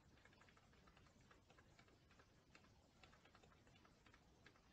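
Near silence with faint, irregular clicks from a computer keyboard and mouse being worked.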